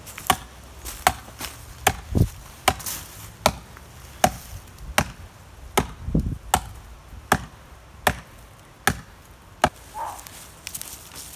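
Hatchet chopping into a standing tree trunk: about a dozen sharp, evenly paced strikes, roughly one every three-quarters of a second, stopping near the end.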